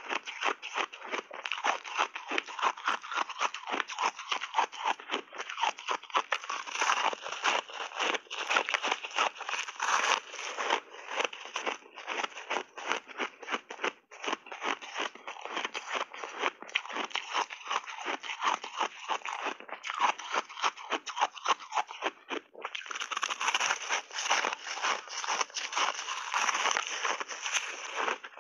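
Close-miked crunching of crushed-and-refrozen reshaped ice being chewed: a rapid, almost unbroken run of crisp crackles and crunches, with a brief break about twenty-two seconds in.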